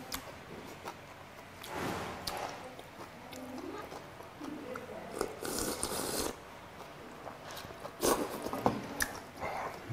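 Eating sounds: slurping and chewing of cold raw-fish soup (mulhoe) taken straight from a stainless steel bowl, with a longer slurp about halfway through and a few sharp clicks near the end.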